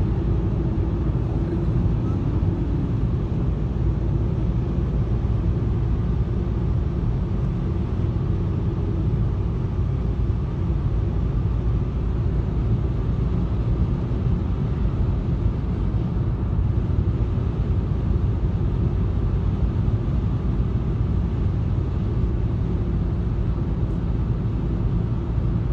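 Steady road and tyre noise of a car driving at speed, heard from inside the cabin as an even low rumble.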